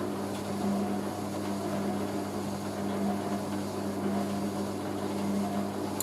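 Hoover A3060 Electronic 1100 washing machine spinning a load of towels, its motor giving a steady, even hum.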